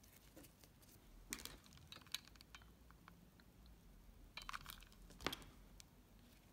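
Faint handling sounds of a satin-ribbon-wrapped headband, a pin and a ribbon flower being worked by hand: a few soft clicks and rustles, the sharpest a little after five seconds in.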